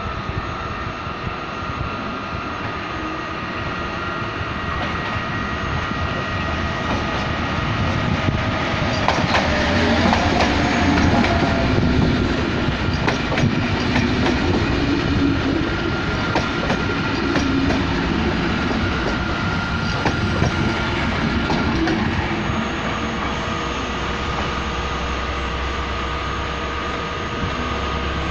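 A short passenger train hauled by a Traxx electric locomotive pulls out and rolls close past, its wheels clicking over rail joints and points, with a faint steady high whine. It is loudest about ten seconds in, then fades a little as the train moves away.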